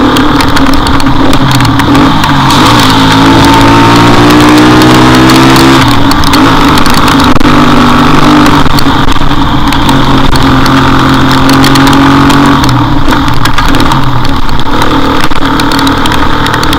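Motorcycle engine on the move, heard from the rider's camera over a steady rush of wind and road noise. The engine note climbs for a few seconds, drops back about six seconds in as if on a gear change, holds steady, then eases off a few seconds before the end.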